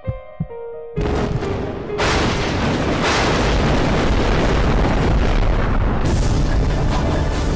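Dramatized explosion sound effect for an aircraft blowing apart in mid-air, over background music. A few low thumps in the music give way about a second in to a sudden boom, which swells from about two seconds in into a loud, steady roar that lasts to the end.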